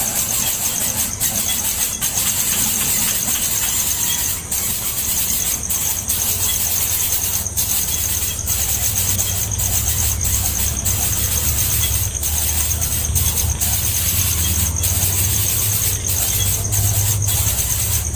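Nestling birds giving high-pitched begging calls, a shrill, almost unbroken cheeping with brief gaps, over a low rumble.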